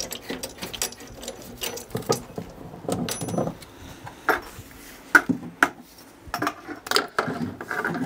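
Braided metal water hoses and their metal fittings being handled and connected: irregular clinks, clicks and light knocks.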